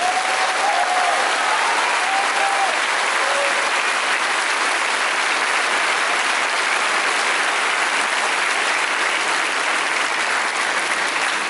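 A large congregation applauding steadily, with a voice or two calling out over the clapping in the first few seconds.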